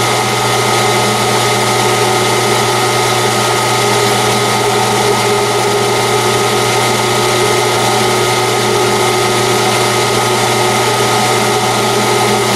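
Metal lathe running steadily at a low spindle speed of about 70 RPM, set up for threading: an even motor and gear hum with several held tones.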